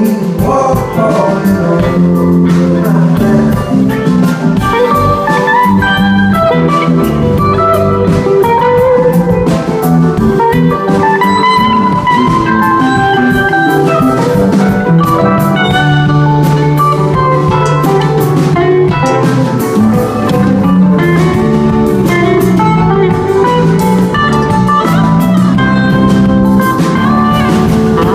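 Live rock band playing an instrumental jam: an electric guitar plays a lead line over bass guitar and a drum kit.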